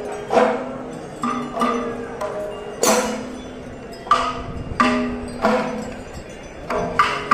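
Kerala chenda melam ensemble: chenda drum strokes and ilathalam cymbal clashes in a slow, spaced rhythm, under held notes of curved kombu horns.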